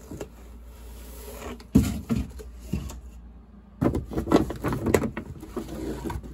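Plastic-wrapped firework boxes being handled in a cardboard case: scattered knocks and rustles, a sharp knock about two seconds in and a busier run of knocks from about four to five seconds.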